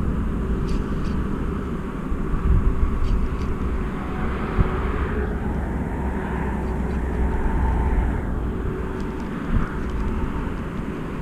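Steady outdoor background noise, mostly a low rumble with a faint steady hum, and a few faint light ticks in the first few seconds.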